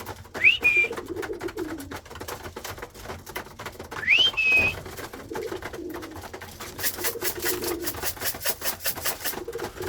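Young pigeons cooing in the loft, with two rising, then held, whistles calling them in. From about seven to nine seconds comes a quick rattle of about six shakes a second, typical of a feed tin of grain being shaken to call the birds down.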